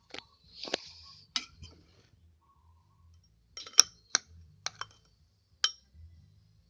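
A spoon clinking and scraping against a glass or dish, a string of about eight sharp clinks with short ringing, the loudest a little under four seconds in.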